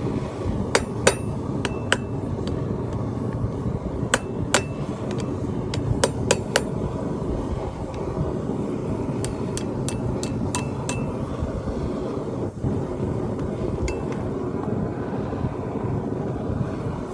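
Ball-peen hammer striking a steel rod on a steel-block anvil, bending the rod into the S-shaped halves of a pair of tongs. More than a dozen sharp, ringing strikes come in small irregular groups, mostly in the first eleven seconds, with a last one about fourteen seconds in, over a steady low background noise.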